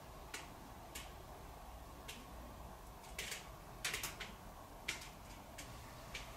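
Faint, irregular sharp clicks or ticks, about eight in six seconds and a little louder around the middle, over a low background rumble.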